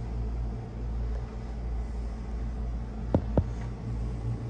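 Steady low hum of a boat cabin's air conditioning, with two sharp clicks about a quarter second apart a little over three seconds in.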